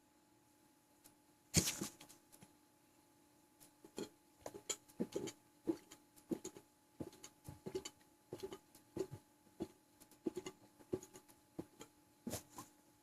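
Sloshing from a full, bloated stomach: a run of short wet sloshes and pops, two or three a second, starting a few seconds in. Before it, about a second and a half in, comes one louder, sharp sound.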